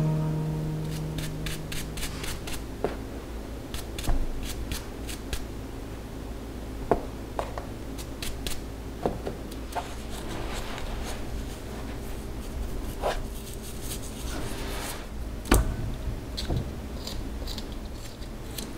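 Close-up food-handling sounds: potatoes set and pressed into dry sand with soft rubbing, then the skin of a fresh ginger root scraped off by hand over a glass bowl. Scattered small clicks and taps, with one sharp knock about three-quarters of the way through.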